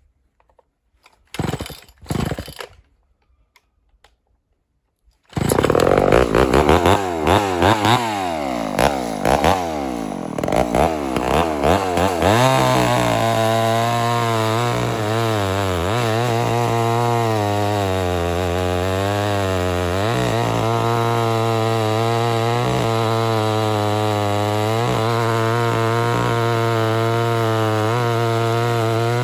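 Homelite Super XL-923 82cc two-stroke chainsaw bursting into life about five seconds in, after two short noises, and running at high revs. Its pitch sweeps up and down at first, then holds steady with small dips.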